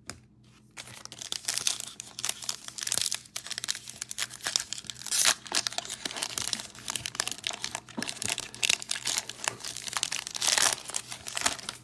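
Foil wrapper of a 2021 Illusions football card pack being torn open and crinkled in the hands, a dense crackling with many small clicks that starts about a second in and goes on as the cards are worked out of the pack.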